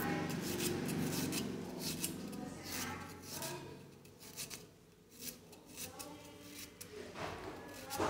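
Kitchen knife cutting and shaving bamboo shoot, in a run of short, crisp, irregular strokes that thin out midway and pick up again.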